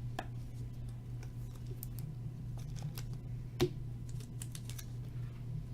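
Trading cards being handled and flipped through: light irregular clicks and flicks of card stock, with one louder tap about three and a half seconds in, over a steady low electrical hum.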